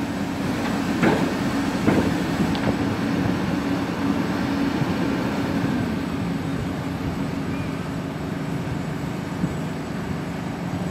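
Diesel engines of tracked demolition excavators running steadily, with sharp knocks of concrete breaking in the hydraulic crusher jaws about one and two seconds in.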